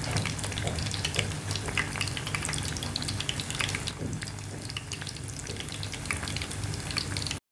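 Battered mutton chops deep-frying in hot oil in a pot: a steady sizzle dense with small crackling pops, cutting off suddenly at the very end.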